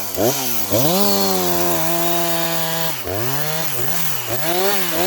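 Husqvarna 359 two-stroke chainsaw throttled up to full revs about a second in and held there for about two seconds, then dropping back and blipped up and down four times.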